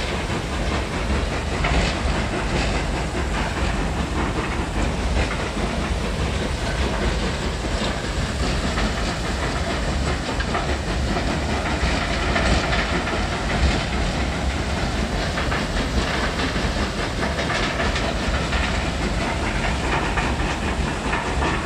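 Stone-crushing plant running: a jaw crusher and a double roller crusher breaking mineral stone, with belt conveyors. It makes a steady, dense machine din with a constant rattle and clatter of rock.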